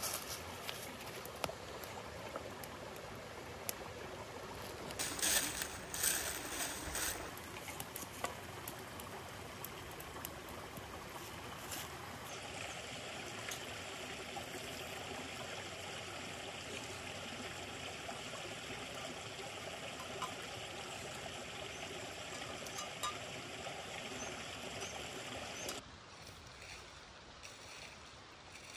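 Shallow creek running and trickling over stones, with a louder burst of noise about five seconds in and a fainter stream sound near the end.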